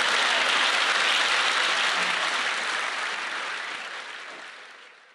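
Audience applause, loud at first and then fading out steadily over the last couple of seconds.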